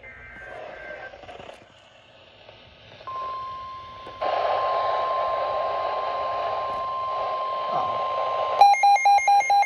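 Weather radio alert: the steady 1050 Hz NOAA Weather Radio warning alarm tone comes in about three seconds in. Radio static joins it about a second later. Near the end, a rapid electronic alarm beeping, about five beeps a second, starts over it, announcing the next warning.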